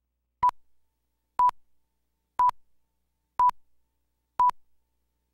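Short electronic beeps of a single pure tone, one each second, five in all: a countdown leader's timing beeps before a broadcast news package.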